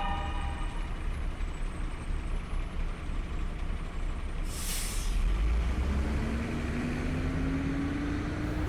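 A large vehicle's engine rumbling, with a short sharp hiss of air about halfway through, then the engine note slowly rising from about six seconds in.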